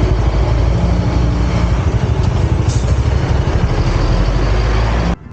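Vehicle engine running steadily at low revs, heavy in the low end, then cut off abruptly about five seconds in.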